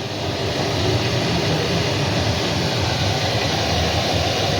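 Steady rumbling hiss of chicken pieces frying in hot oil over a gas flame.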